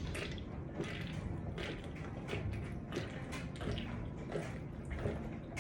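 A man chugging a can of seltzer: a steady run of quick gulps and swallows.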